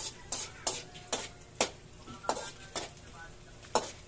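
Spatula stirring in a frying pan, clacking and scraping against the pan about every half second, over a light sizzle of onion, garlic and chili sautéing in oil.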